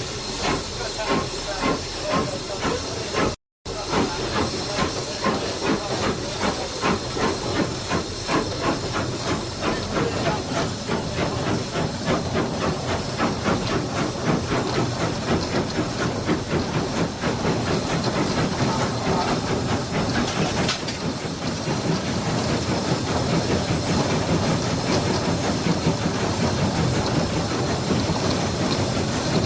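GER N7 0-6-2T steam tank locomotive 69621 working hard, its exhaust beats and steam hiss quickening steadily as it accelerates until the beats run together. There is a brief dropout in the sound about three and a half seconds in.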